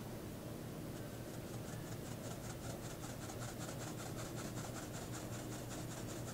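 Fine-mesh metal sieve being shaken over a glass bowl, flour, ground almonds and cocoa rasping through the mesh in quick regular strokes, about four or five a second, starting about a second in.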